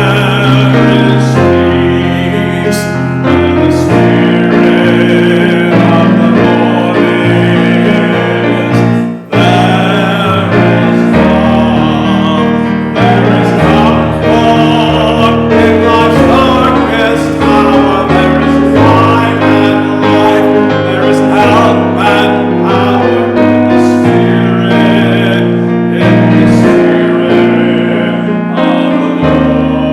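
Piano music: held chords and bass notes under a melody, with a brief break about nine seconds in.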